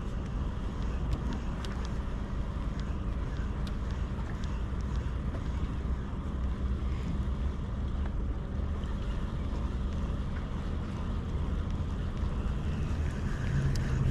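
Steady low rumble of wind across the microphone, with water washing against the breakwater rocks.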